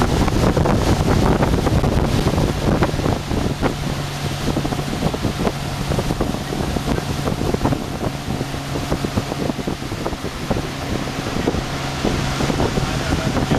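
Motorboat engine running steadily at speed, its tone held constant. Wind buffets the microphone and the churning wake rushes beneath it.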